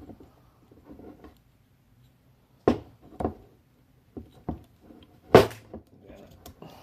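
A series of short sharp clicks and knocks, about half a dozen, the loudest about five seconds in, as metal pins are pushed and tapped back into the trigger-group holes of a T15 paintball marker's receiver, with faint handling noise between.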